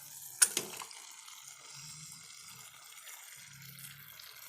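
Faint, steady sizzling of chopped tomatoes and masala paste cooking in oil in a pan, with one sharp clink of a utensil against the pan about half a second in.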